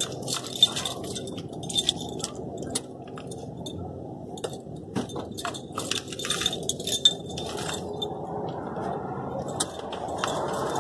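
A bunch of keys on a neck lanyard jangling and clinking in short, irregular bursts as the wearer shifts her body.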